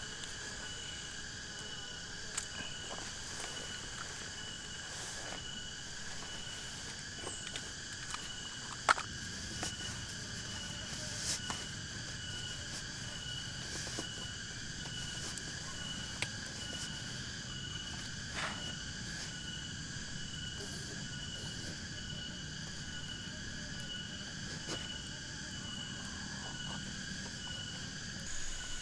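Steady chorus of forest insects, several high unbroken tones sounding together, with scattered sharp clicks and taps, one louder about a third of the way in.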